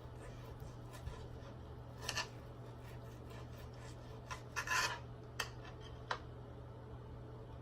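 Cutlery scraping and rubbing on a plate while eating steak: a short scrape about two seconds in, a longer cluster of scrapes midway, then a couple of light ticks, over a faint steady hum.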